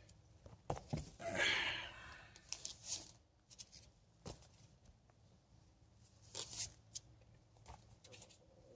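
Comic books being handled and shuffled: short papery rustles with a few light knocks, coming in scattered bursts.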